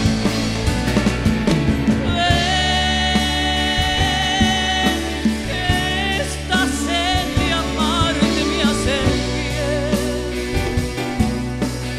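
Live band playing a pop ballad: a lead melody with vibrato, held and then moving, over bass guitar and drums.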